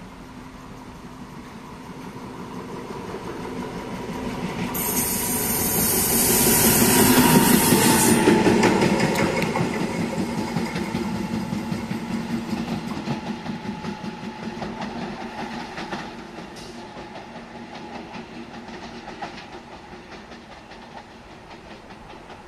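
Train passing: it grows louder to a peak about seven or eight seconds in, then fades away, with the wheels clacking over rail joints. A loud hiss starts abruptly about five seconds in and stops about three seconds later.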